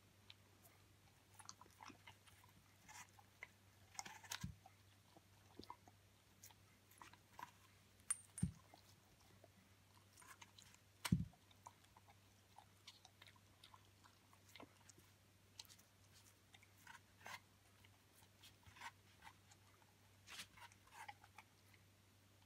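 Young Hamiltonstövare dog biting and chewing a whole apple: irregular crisp crunches and crackles of the apple flesh, with three dull thumps, the loudest about eleven seconds in.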